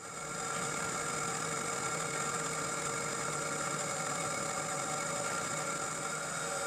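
The electrically driven rotor mechanism of a tabletop model helicopter is running steadily, spinning a main rotor with secondary rotors at its tips. It makes an even motor-and-gear whine made up of several steady tones.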